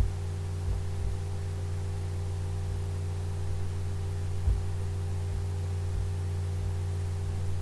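Steady electrical hum with light hiss from the recording chain, broken by a few faint low thumps.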